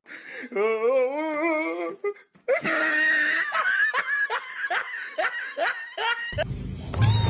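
A person laughing hard: a wavering, high-pitched squeal of laughter, then a long run of quick laughs at about three a second.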